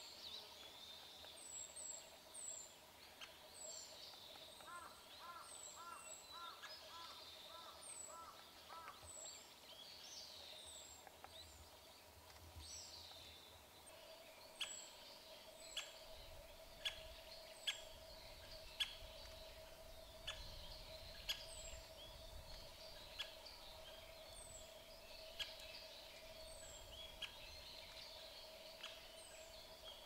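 White-backed woodpecker pecking at dead wood while foraging. From about halfway through come sharp single taps, roughly one a second and unevenly spaced. Thin high chirps of small birds are heard throughout.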